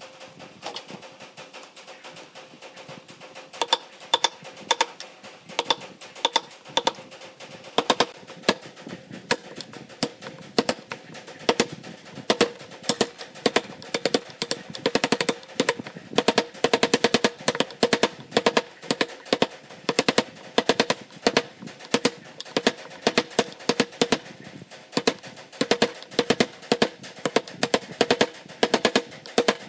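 Wood chisel being struck again and again as it cuts a recess into soft pine, in sharp rapid blows. The blows begin a few seconds in and come faster in the second half.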